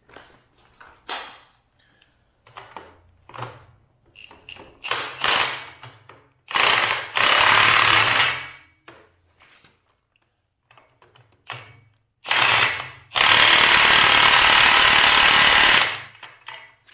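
Cordless impact wrench hammering the ball-joint stud nuts down on a steering knuckle, in two loud runs: about two seconds long, then about three and a half seconds long near the end. Before them there are light metal clinks and taps as the parts are handled.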